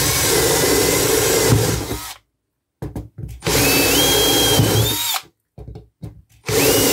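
Handheld power drill with a step drill bit widening pilot holes in an aluminium guitar-pedal enclosure. It runs in three bursts with a steady motor whine: about two seconds at first, then stopped, a second and a half around the middle, and starting again near the end. There are brief clicks in the pauses.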